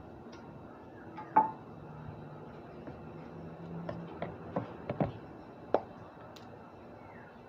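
A handful of sharp clinks and knocks of a metal cooking utensil against cookware: one loud strike about a second and a half in, then a quick run of lighter ones between about four and six seconds in.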